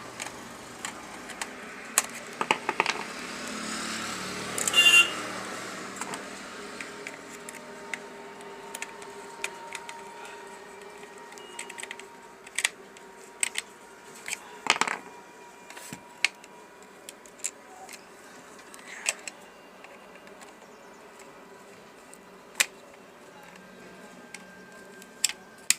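Screwdriver and small screws being worked into a plastic mini speaker case: scattered small clicks and ticks of metal on plastic, with a louder scrape about five seconds in and a sharp knock about fifteen seconds in. A faint steady hum lies underneath.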